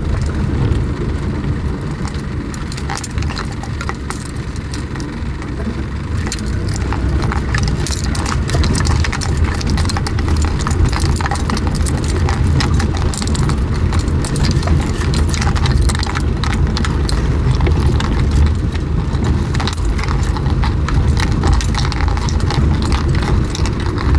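1995 Toyota Hilux 4WD driving slowly through a deep creek crossing: a steady low engine rumble with many small clicks and rattles throughout as the vehicle works over the creek bed.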